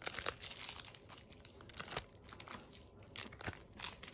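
Thin clear plastic wrapping crinkling as a sealed pack of cards is handled, in irregular short crackles and rustles.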